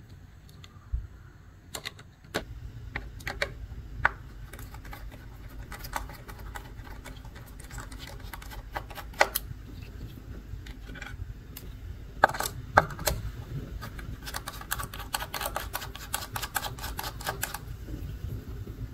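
Small sharp metal clicks and ticks as a precision screwdriver with a T7 Torx bit unscrews tiny screws from a hard drive's metal case, with low handling rumble underneath. A quick run of rapid clicking lasts about three seconds in the later part.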